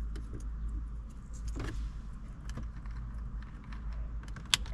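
Small plastic clicks and taps as replacement climate-control button caps are handled and fitted on the dash panel, with one sharper click near the end as a cap snaps into place. A steady low hum runs underneath.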